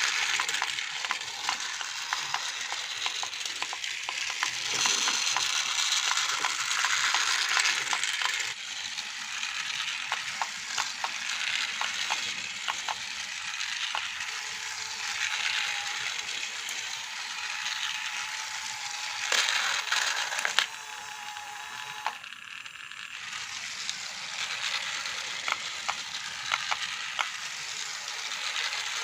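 Battery-powered plastic toy vehicles running: a steady clatter of small gears and wheels with many light clicks, and a brief motor whine about two-thirds of the way through.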